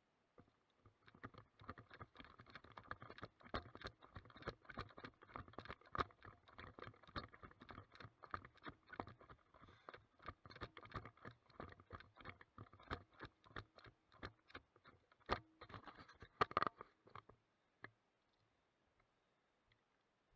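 Footsteps crunching on loose gravel and stones, quick and irregular, stopping about three seconds before the end.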